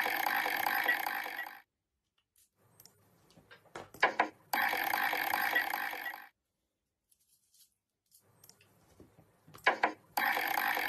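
A buzzer-like tone sounds three times, each lasting about a second and a half and ending abruptly. Each is preceded by a few clicks and knocks from the homemade cardboard slot-machine game being played.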